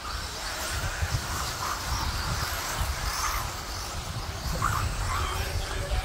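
Radio-controlled mini truggies racing on a dirt track, their motors and tyres coming and going as they pass, over an uneven low rumble.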